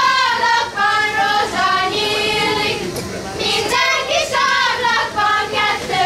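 A group of young girls singing a Hungarian folk song together while dancing in a ring, in the manner of a girls' circle dance (karikázó).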